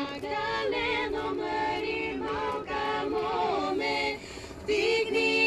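Female a cappella vocal quartet singing a Balkan folk song in harmony, the melody lines wavering with ornaments. A short lull a little past four seconds, then the voices come back in louder.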